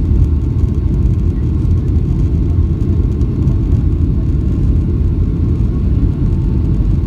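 Steady cabin noise inside a Boeing 757-200 descending on approach: the low, even rumble of the engines and airflow over the airframe, with a faint steady tone above it.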